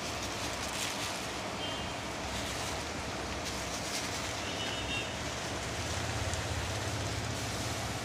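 Steady low hum and hiss of background noise, with a few faint clicks.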